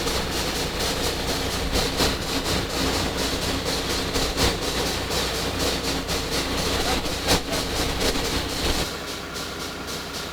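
Rotary drill rig running steadily with a deep engine drone and a few sharp knocks. About nine seconds in, the deep drone drops away and the rig runs quieter.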